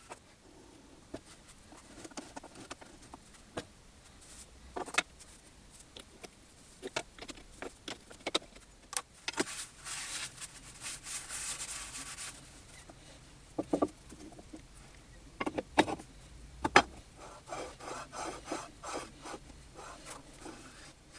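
Hand work on small metal parts at the bench: scattered clicks and knocks of tools being picked up and set down, with a few seconds of steady rasping scrape about nine seconds in and a quick chattering run near the end.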